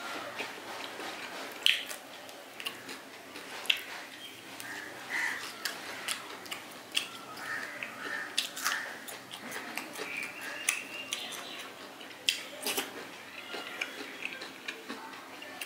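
A person eating up close: chewing and biting fried bata fish with rice, with scattered sharp clicks and mouth smacks throughout.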